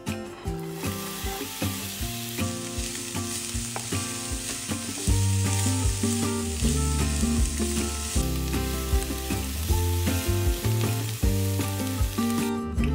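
Chopped onion sizzling in hot vegetable oil in a non-stick frying pan, stirred with a wooden spatula. The sizzle starts about a second in as the onion goes into the pan and cuts off near the end.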